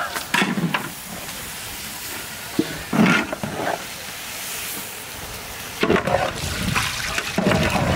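A long-handled ladle stirring chopped giant taro in spiced oil in a large metal pot, with irregular scrapes and knocks against the pot over a steady sizzling hiss from the frying. The loudest scrape comes about three seconds in, and the stirring grows busier near the end.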